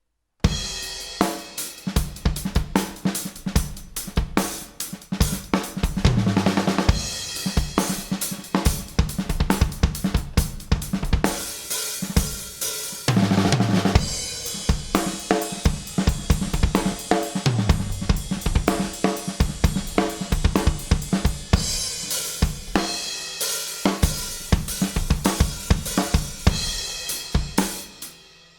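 Rock drum kit playing a steady groove, with kick, snare, hi-hat and cymbals, over a bass guitar line. It starts abruptly and fades out near the end.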